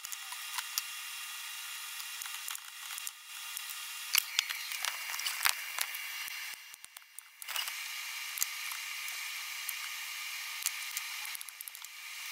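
Light clicks and taps of hands working screen mesh into a wooden frame, over a steady hiss, with a cluster of sharper clicks about four seconds in and the loudest click about five and a half seconds in.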